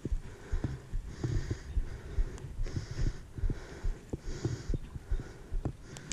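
Close breathing into the microphone, a soft hiss about every second and a half, over low thumps and rustle of handling and clothing against the mic.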